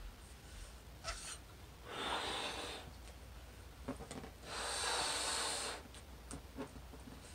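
A person blowing up a balloon by mouth: two long breaths blown into it, about a second each, each after a short breath in.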